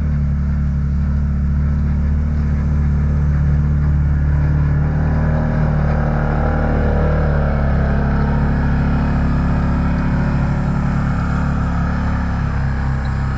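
Can-Am side-by-side's engine running steadily while it pulls a harrow across the field.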